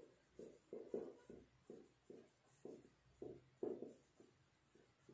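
Marker pen writing on a whiteboard: a dozen or so short, faint strokes at an uneven pace.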